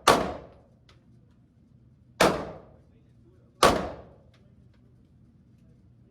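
Three pistol shots from a Smith & Wesson M&P Shield, fired about two seconds and then about one and a half seconds apart, each with a short fading echo.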